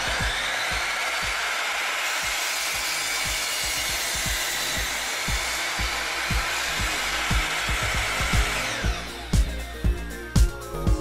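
FEMI electric mitre saw running at full speed with a steady high whine, winding down in pitch about nine seconds in as the motor is switched off. Background music with a steady beat runs underneath.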